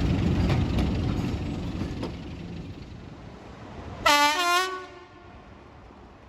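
A diesel locomotive and its coaches rumble and clatter away into the distance. About four seconds in, a locomotive horn gives one short blast.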